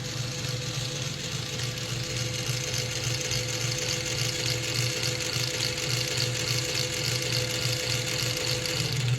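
South Bend 10-inch Model A metal lathe running under power, driven by a three-phase motor and flat belt: a steady low hum with a higher whir over it. A steady tone in the hum drops out near the end.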